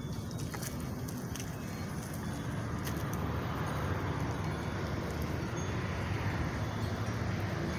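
Steady outdoor city background rumble, with a few faint light clinks in the first seconds.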